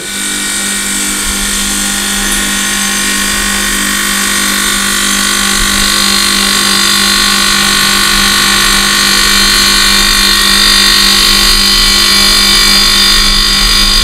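Air compressor running steadily, a loud hum with a whine in it, building pressure to flush solvent through an AC capillary tube; it grows a little louder and higher in tone partway through.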